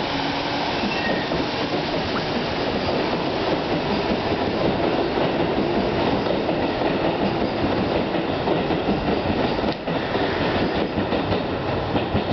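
Keikyu electric local train pulling out of the station, its wheels and running gear making a steady loud rumble, with sharp clacks of wheels over rail joints in the last couple of seconds.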